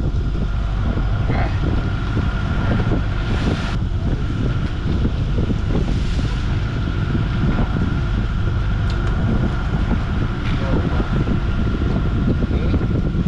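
Steady low rumble of a fishing boat's onboard motor running, with wind buffeting the microphone and a faint steady high whine over it.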